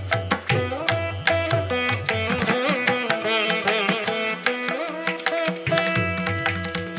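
Background music in Indian classical style: a plucked string instrument playing a melody with bending, sliding notes over a steady pattern of hand-drum strokes.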